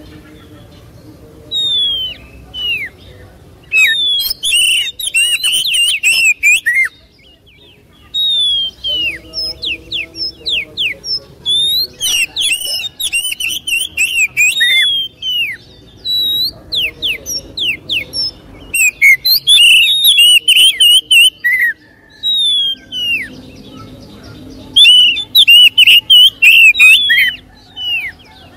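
Oriental magpie-robin (kacer) in full song. It sings about six loud bouts of a few seconds each, separated by short pauses. Each bout mixes clear sweeping whistles with rapid, harsh, scratchy phrases.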